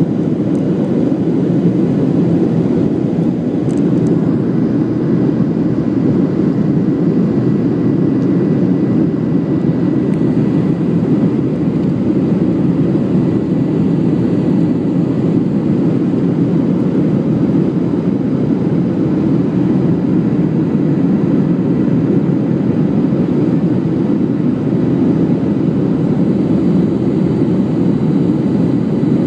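Steady cabin noise of a Boeing 737 climbing, heard from inside the passenger cabin: jet engine and airflow noise, strongest in the low range, with a faint steady high tone above it.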